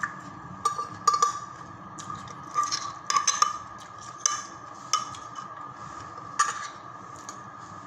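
Metal spoon clinking and scraping against a ceramic plate while scooping up rice and fried egg: about ten irregular clinks that stop near the end.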